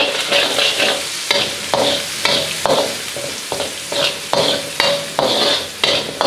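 Chopped onions sizzling in hot oil in a wok while a spatula stirs and scrapes them around the pan, about two strokes a second.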